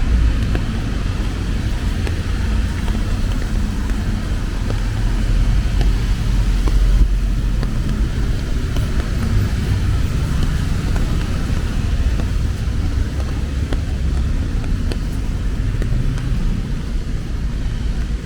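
City street traffic in the rain: cars passing on a wet road, a steady low rumble of engines and tyres with a hiss above it.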